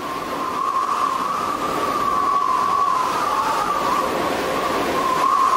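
Tornado-style wind sound effect: a steady rushing roar with a high, slightly wavering howl running through it.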